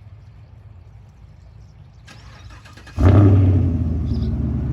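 Chevrolet Camaro SS 6.2-litre LT1 V8, still on its original mid-pipe, starting up: about three seconds in it fires with a sudden loud flare, then settles into a steady idle.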